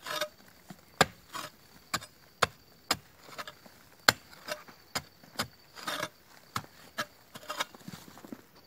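Small grub hoe (enxadão) chopping into hard red clay soil while digging, a sharp strike about twice a second.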